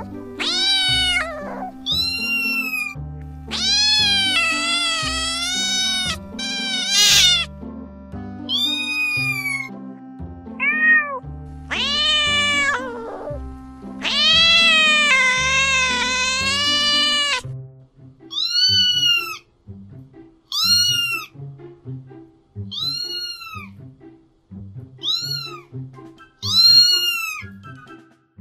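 Cats meowing over background music: long, drawn-out meows in the first half, then a string of short, high meows about every second and a half.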